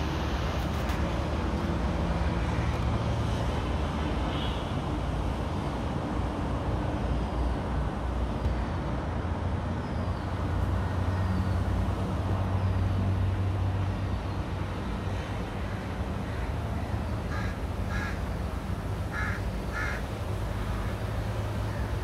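House crow cawing about four times in short harsh calls near the end, over a steady low rumble. A few faint, short high chirps of smaller birds come about a third of the way in.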